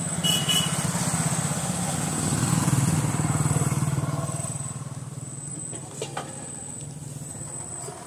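A motorcycle engine passing by: its low, fast beat grows louder over the first three seconds or so, then fades away.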